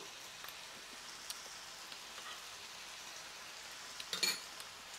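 Squid and vegetables sizzling steadily in a nonstick frying pan over a gas flame, with a few faint ticks and a brief louder clatter about four seconds in.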